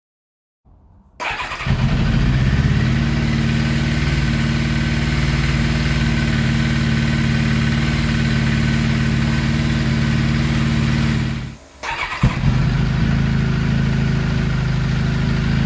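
Turbocharged, fuel-injected Kawasaki ZXR750 inline-four starting up about a second in and settling into a steady idle. The idle is smooth now that the ignition timing is fixed and half the fuel has been pulled from the injection map. About twelve seconds in the sound drops out briefly and the engine comes straight back at the same idle.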